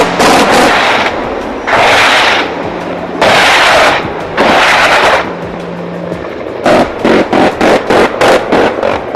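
Bursts of weapons fire from a Mi-24 Hind attack helicopter on a low pass: three dense bursts under a second each, then a run of sharp cracks about three a second near the end, over background music with a steady low tone.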